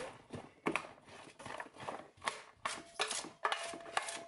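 Kitchen knife chopping food on a cutting board: a run of sharp, uneven strokes, about two to three a second.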